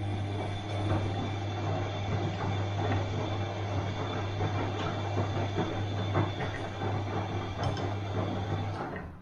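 Washing machine running: a steady motor hum with a continuous clinking, rattling tumble, stopping suddenly near the end.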